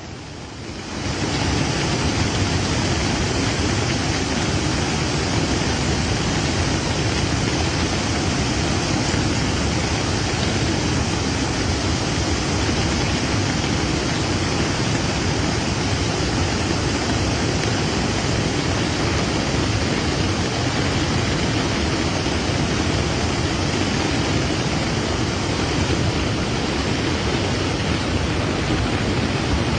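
Heavy thunderstorm rain pouring down in a steady, loud hiss, with no distinct thunderclaps.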